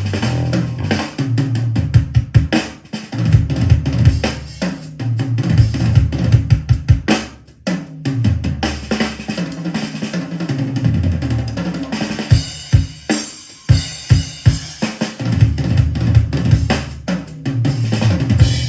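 Loud recorded music with a heavy drum kit and deep, pulsing bass, played through loudspeakers driven by a Crown XLS1502 power amplifier as a sound test.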